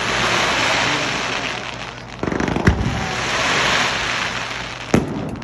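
Fireworks bursting overhead: a run of rapid crackling about two seconds in, sharp bangs a little later and again near the end, and a swelling hiss between the bursts.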